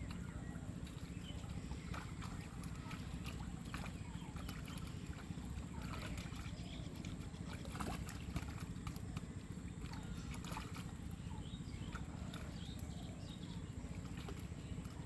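Pond water sloshing and splashing in small irregular bursts over a steady low rumble.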